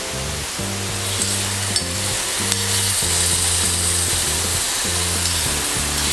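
Marinated goby fish sizzling as it is spooned into hot oil and fried shallots in a clay pot, being seared until it firms up. The sizzle grows louder about halfway through, with a few light clicks of the metal spoon.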